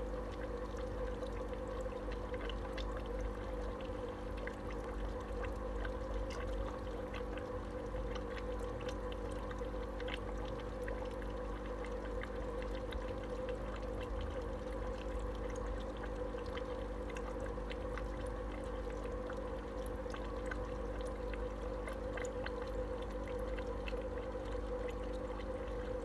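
Aquarium sponge filter bubbling and trickling steadily, over a constant hum from its air pump, with scattered small pops.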